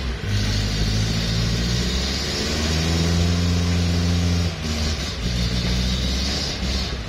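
Engine of a loaded 4x4 pickup laden with oil palm fruit bunches, working hard in low gear through deep mud. The engine note rises and falls as the throttle changes, with a brief dip about four and a half seconds in.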